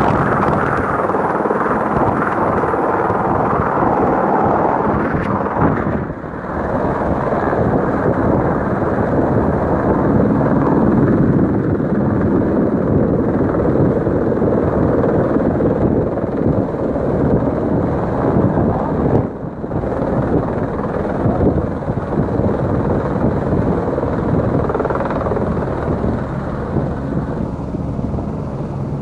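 Helicopter hovering close by, its rotor and turbine running loud and steady with a rapid beat. The sound dips briefly twice.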